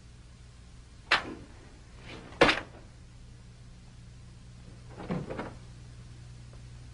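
Two sharp clacks about a second apart, then a door latch clicking and a closet door being pulled open, over a faint steady hum.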